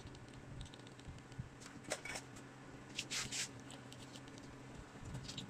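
Faint short scraping and rubbing sounds from hand tools working on an LCD TV panel's COF flex strip: one about two seconds in, a cluster around three seconds and more near the end. A steady low hum runs underneath.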